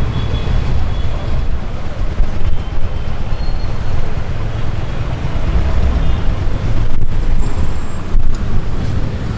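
Road traffic noise heard from a scooter in a jam: a steady low rumble of engines and vehicles around it.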